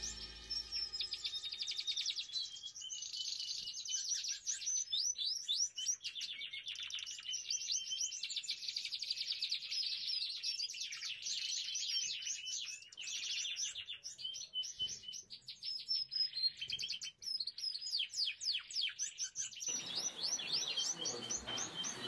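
Lizard canaries singing: fast trills and rapid runs of high chirping notes, one run after another. A steady background noise of the show hall comes in near the end.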